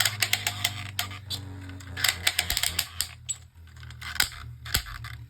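Irregular hard plastic clicks and clatter of a Beyblade and its Precision Strike launcher being handled, over a steady low hum.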